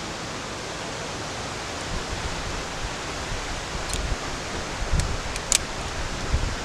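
Steady rush of falling water from a waterfall, with a few short sharp clicks about four and five and a half seconds in.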